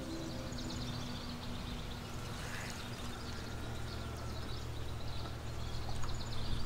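Small birds chirping faintly and intermittently over a steady low hum.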